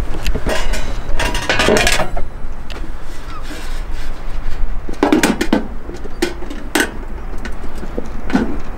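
Metal clanks and knocks as the stainless-steel tray and lid of a camping smoker are handled and the lid is set on, several times, over a steady rumble of wind on the microphone.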